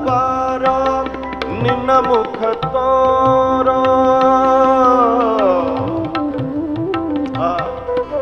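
Live Indian devotional band playing an instrumental passage. Tabla strokes sound under long melodic notes that are held and then slide to a new pitch, over a steady drone.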